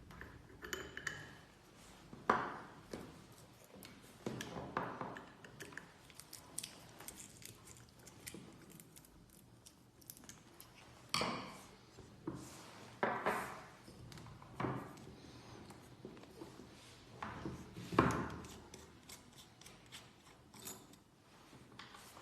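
Small metal and plastic parts of a motion-sensor faucet clicking and clinking as they are handled, with several louder knocks spread through.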